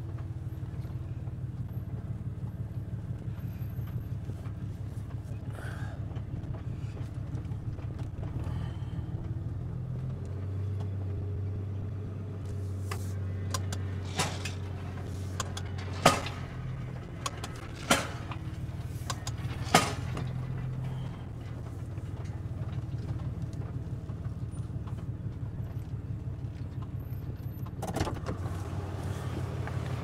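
Ranch truck engine running at low speed while creeping through a pasture, a steady low hum whose note shifts about a third of the way through and returns later. A few sharp knocks or clanks come through the middle, and one more near the end.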